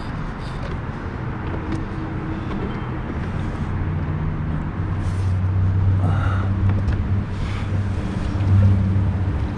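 Low, steady engine hum, growing louder toward the end, under light wind and water noise.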